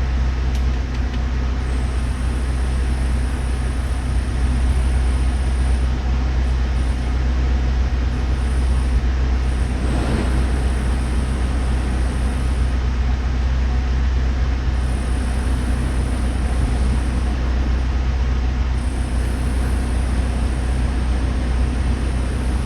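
Pickup truck (Chevrolet S10) running with its cabin blower fan on: a steady low drone with a faint high whine that comes and goes. This is the strange noise that turned out to come from the blower motor's fan.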